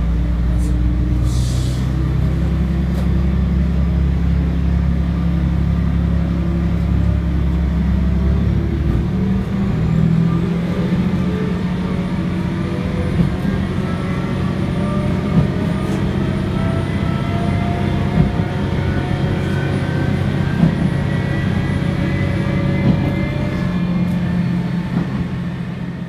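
KiHa 120 diesel railcar running, heard from the driver's cab: a heavy, steady low engine drone that eases about nine seconds in, followed by a slowly rising whine as the car picks up speed. A few sharp clicks come through the running noise.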